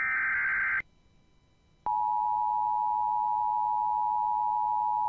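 The tail of an Emergency Alert System SAME header: a short burst of digital data noise that stops within the first second. After a pause of about a second, the EAS two-tone attention signal (853 Hz and 960 Hz together) starts and holds steady.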